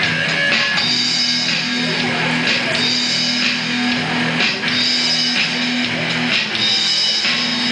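A small rock band playing live without singing: amplified electric guitar chords, repeated in a steady pattern over an electronic drum kit with cymbal hits.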